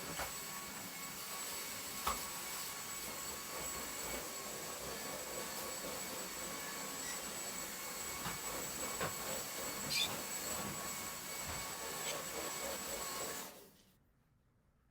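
Steady hiss with a faint, high, even whine, like a running appliance, with a few light clicks. It cuts off abruptly near the end.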